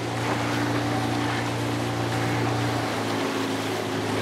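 Outboard motor of a small follow boat running at a steady, low speed: a constant hum over a hiss of water and wind. Its pitch shifts slightly about three seconds in.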